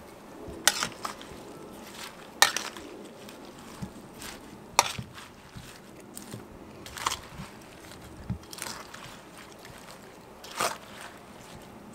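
Kitchen utensils knocking and clattering during cabbage preparation: a series of sharp knocks spaced irregularly a couple of seconds apart, with lighter crunching and scraping between them.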